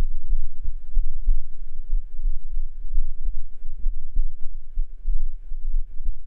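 A human heartbeat picked up by a binaural microphone held against the chest: low thumps repeating in a steady rhythm.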